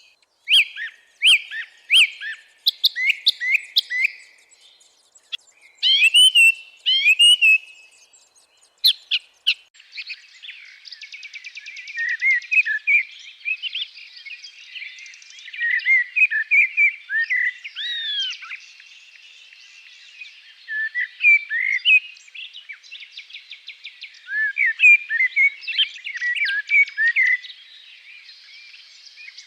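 May woodland songbirds singing: clear, short whistled phrases from one or two birds, then from about ten seconds in several birds overlapping, with a fast, even trill running beneath their songs.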